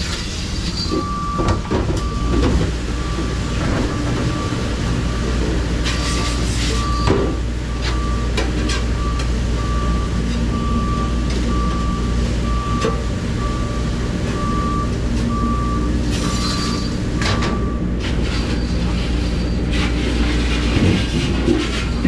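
Steady low rumble of a moving vehicle, with a long series of evenly spaced beeps at one pitch from about a second in until near the end, and a few scattered knocks.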